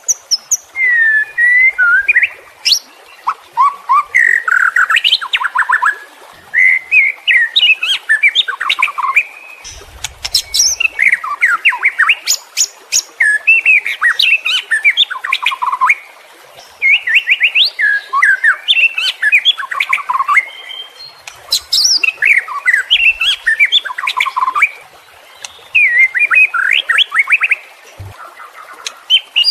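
White-rumped shama singing loudly in rapid, varied phrases of whistles, trills and sharp clicky notes, each burst lasting a second or a few seconds with short pauses between.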